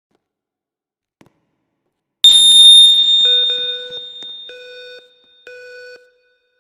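A school fire alarm system going off. A loud, piercing high tone starts suddenly about two seconds in and fades, while the alarm horns begin sounding in short pulses: three pulses, then a pause, the temporal-three evacuation signal.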